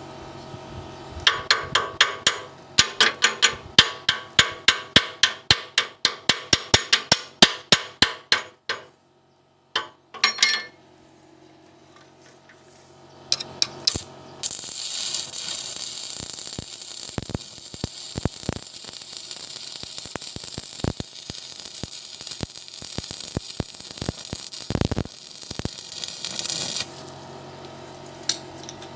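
Rapid hammer strikes on metal, ringing, about three a second, for several seconds. About halfway in, a stick-welding arc starts a steady crackling hiss that runs for roughly twelve seconds and cuts off suddenly.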